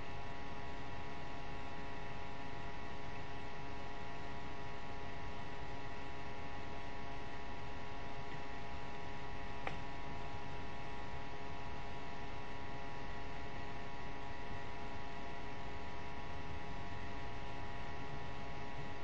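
Steady electrical hum with a stack of fixed whining tones over a bed of hiss, unchanging throughout, with one faint click about ten seconds in.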